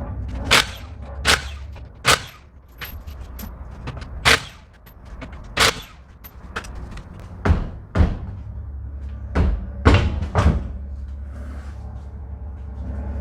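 Irregular sharp knocks and clanks, about ten of them, from hand tools and parts being handled while a wheel comes off, over a steady low hum.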